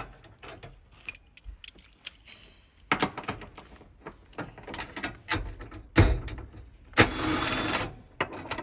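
A hand socket ratchet clicking in short runs as bolts on a hybrid battery pack are worked loose, with scattered clinks and knocks of tools and metal against the battery casing. There are two longer runs of ratchet clicking about six and seven seconds in.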